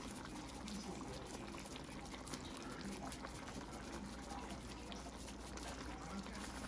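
Covered pot of curry chicken back simmering on the stove, a steady quiet bubbling with faint small pops.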